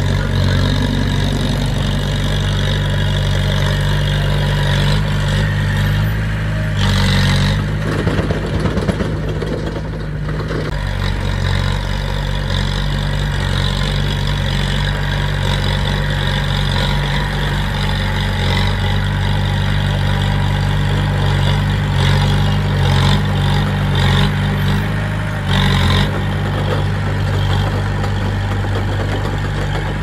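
Bulldozer's diesel engine running steadily under a deep, even drone, with a few short, louder bursts of noise scattered through it.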